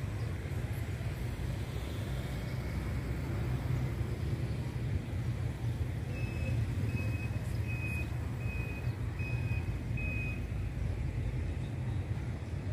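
Steady low rumble of street traffic, and about six seconds in a vehicle's electronic warning beeper sounds six short, high beeps a little under a second apart.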